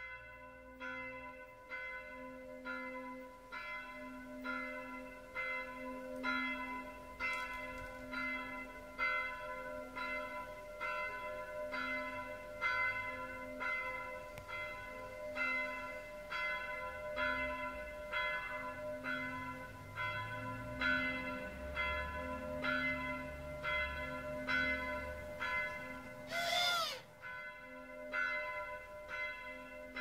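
A church bell ringing steadily, about one stroke a second, each stroke's tones carrying on into the next. A few seconds before the end a brief sweeping glide cuts across it.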